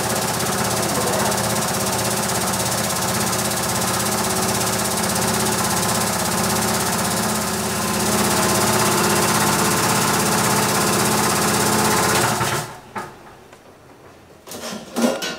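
Electric sieve shaker running with a clamped stack of soil sieves, a steady mechanical rattle and hum as it shakes a soil sample through the stack for a particle-size (sieving) analysis. It cuts off suddenly about three-quarters of the way through, and a few light knocks follow near the end.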